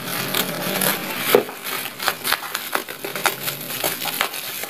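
Parcel packaging being unwrapped by hand: a dense run of crinkling, crackling and sharp snaps as the wrapping is torn and pulled open.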